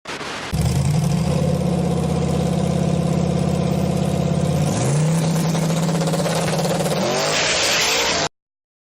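An engine or motor running at a steady pitch that steps up slightly about five seconds in, with a hiss swelling near the end before it cuts off suddenly.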